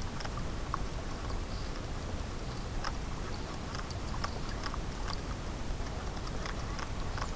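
River-side outdoor ambience: a steady low rumble with scattered faint short clicks and chirps.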